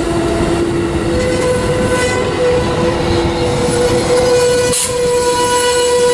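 Amtrak passenger cars rolling past at speed: a steady rumble of wheels on rail with high, steady wheel-squeal tones, one tone giving way to a higher one about a second in. A brief hiss comes about five seconds in.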